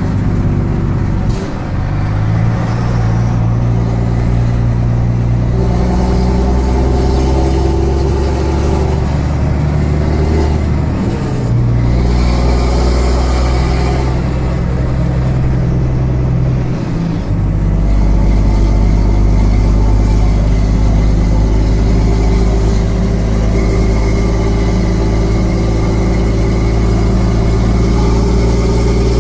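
A 550 bhp Volvo lorry's diesel engine heard from inside the cab, running under way through a straight-through exhaust with a deep, steady drone. The engine note dips briefly and changes about a second and a half in, again about 11 seconds in, and again about 17 seconds in.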